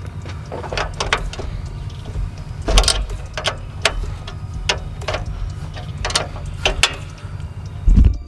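Irregular metallic clicks and knocks from hand tools working on the truck's A/C condenser mounting, about a dozen in all, over a steady low hum.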